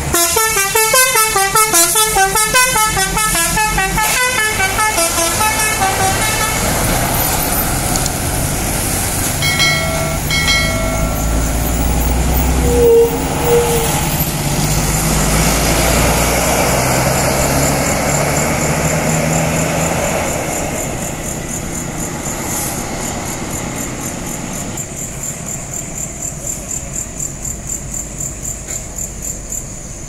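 A tour bus's Basuri telolet musical horn plays a quick multi-note tune for the first several seconds, then gives two short toots about ten seconds in. The bus's engine runs loudly as it takes the bend and then fades as it pulls away.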